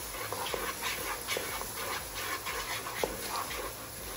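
Wooden spatula stirring and scraping a thick tomato and onion curry base around a stone-coated wok, a quick run of short scrapes over the low sizzle of the sauce cooking.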